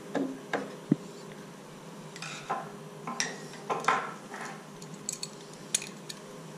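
Irregular metallic clinks and knocks of hand tools: tools picked up from a table and an adjustable spanner fitted onto the brass body of a break tank's pressure switch. A faint steady hum runs underneath.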